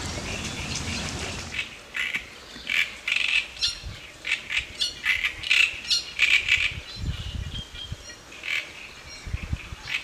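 A reed warbler singing from the reed bed: a long run of loud, harsh, chattering notes repeated about twice a second, starting about a second and a half in after a stretch of steady outdoor noise.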